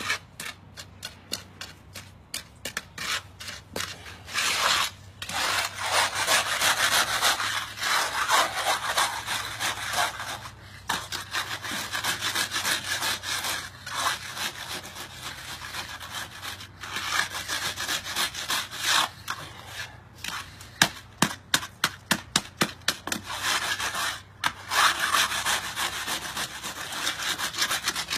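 A 12-inch diamond-design concrete hand float scraping back and forth over fresh concrete in heavy rubbing strokes, reworking a rough patch that is not up to par. The gritty rasp comes in quick short strokes near the start and again about three-quarters through, with longer steady runs in between.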